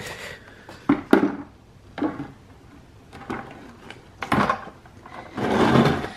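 Cast-iron side housing of a Mazda 13B rotary engine being set down and shifted by hand on a bucket: several separate knocks and clunks, then a longer scrape near the end, the loudest part.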